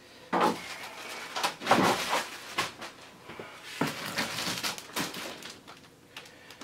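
Rustling and handling noises in a few short bursts: a pair of shorts being folded, then a plastic-packaged mattress protector rummaged out of a plastic storage tote.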